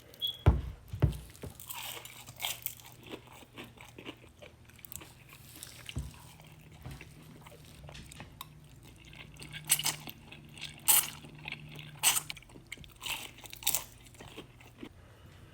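Close-miked biting and chewing of crunchy fried coconut shrimp, with sharp crunches scattered through. The loudest bites come about half a second and one second in, and again in a cluster from about ten to fourteen seconds in.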